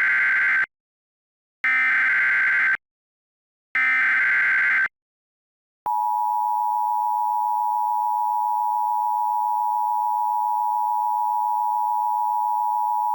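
Emergency Alert System SAME header: three short bursts of data tones, the first already under way, then about six seconds in the steady two-tone EAS attention signal starts and holds.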